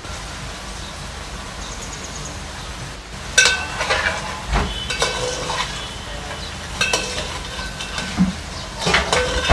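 Chicken pieces sizzling in oil in a steel pan on a high gas flame. From about three and a half seconds in, a metal spatula stirs them, clinking and scraping against the pan with short ringing clanks.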